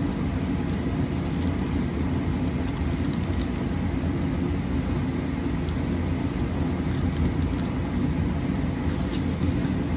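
Steady low rumble, with a brief light crinkling near the end.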